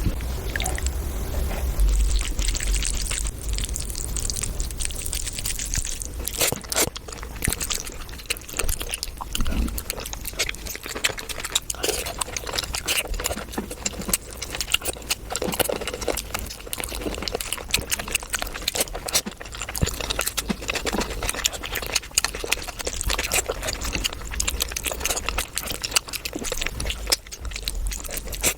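Close-up eating sounds of mutton curry being eaten: wet chewing and mouth clicks, irregular and continuous.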